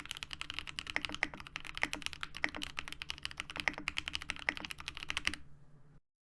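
Fast typing on a Geonworks Frog TKL mechanical keyboard with lubed and filmed Zepsody Bluebonnet switches and PBT keycaps: a rapid, continuous run of key strikes. The typing stops about five seconds in.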